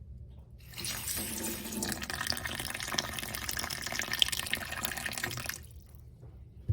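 Water running from a kitchen tap for about five seconds, then shut off, followed by a brief knock at the very end.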